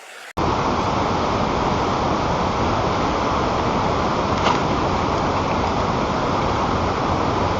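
Wind blowing over the nest camera's microphone: a steady, even rush of noise, with a faint click about four and a half seconds in.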